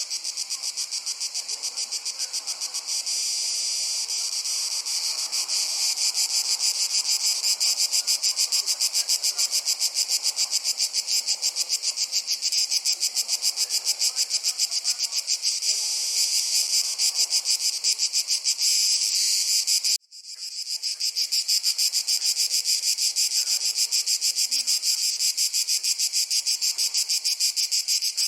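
Dense, steady chorus of crickets chirping in rapid, continuous pulses. It cuts out abruptly for a split second about twenty seconds in, then comes straight back.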